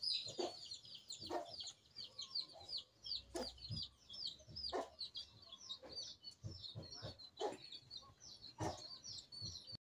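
Birds chirping in a fast, continuous series of short high notes, about five a second. Under them, banana leaves crinkle and rustle in scattered soft crackles as they are folded by hand.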